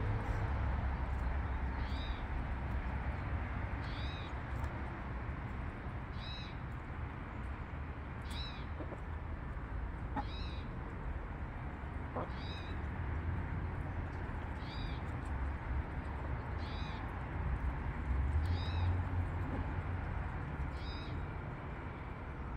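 A short, high-pitched animal call repeating evenly about every two seconds, over a steady low rumble.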